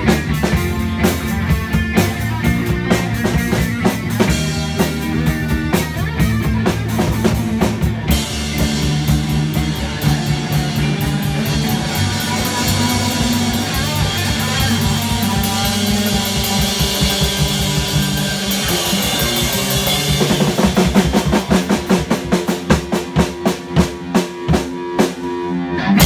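A live rock band plays with electric guitars, bass and drum kit. Cymbals come in heavier about a third of the way through, and the drums hit hard and regularly in the last few seconds before the song ends.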